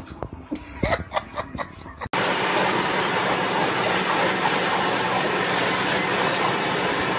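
A few knocks and bumps, then, from about two seconds in, a leaf blower running steadily with a loud, even rush of air from its nozzle, which a dog is biting at.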